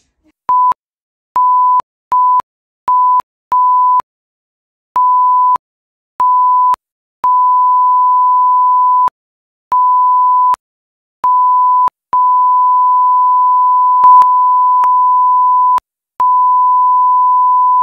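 Censor bleeps blanking out a spoken rant: a loud, steady, single-pitched beep near 1 kHz, switched on and off about a dozen times. Some bleeps last under half a second and others run two to nearly four seconds, with dead silence between them.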